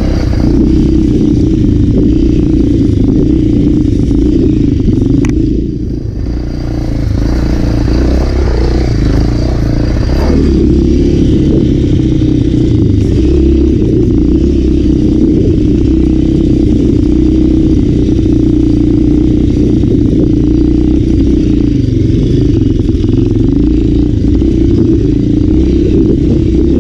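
Off-road motorcycle engine running steadily under way, with a brief easing about six seconds in before it picks up again.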